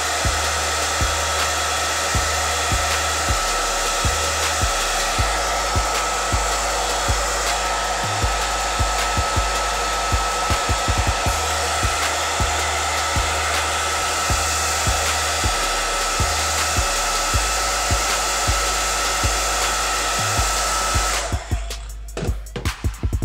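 Handheld hair dryer blowing steadily with a thin steady whine, switched off near the end. Background music's bass line runs underneath.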